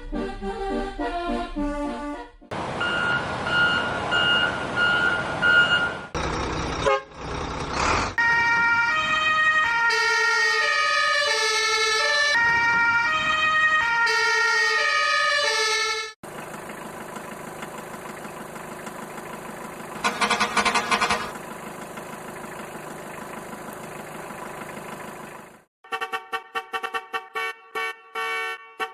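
A string of electronic sound effects and short tunes, such as a toy vehicle's sound buttons play: a siren-like wail, a simple beeping melody in the middle, then a steady electronic hum and quick rhythmic clicking near the end.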